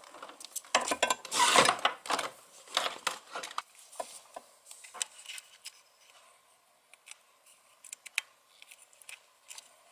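An HDMI cable being handled and plugged into a Raspberry Pi among the robot car's wiring. Rubbing and rustling of cable and plastic for the first few seconds, then scattered small clicks and taps.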